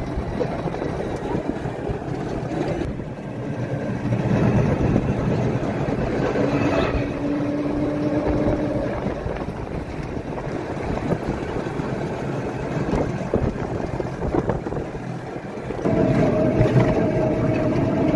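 Roadside traffic: motor vehicles running past with a steady rush of noise, and an engine's steady drone coming in briefly twice, about a third of the way through and again near the end.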